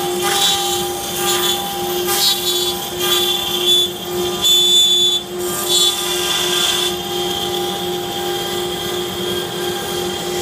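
CNC router spindle running with a steady tone while its bit mills a contoured mold into layered plywood. Louder surges of cutting noise come and go over the first seven seconds, the loudest about halfway through, and then the cutting settles to a steadier sound.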